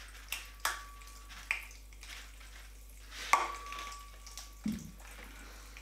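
Crackle bath colour powder being tipped from a sachet into a glass bowl of warm water while a packet is handled, giving about four sharp clicks and crackles spread over a few seconds against a quiet background.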